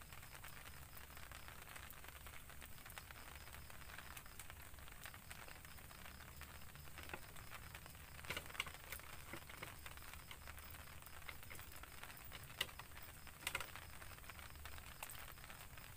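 Light rain pattering faintly: a soft steady hiss with scattered small drip ticks and a few sharper taps in the second half.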